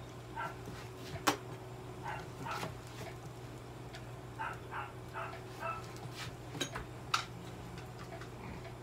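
A dog barking and yipping in short, repeated bursts, with a steady low electrical hum and two sharp clicks, one about a second in and one about seven seconds in.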